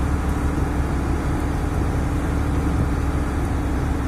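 The engine of the boat being ridden, running steadily underway: a continuous low drone with a steady hum.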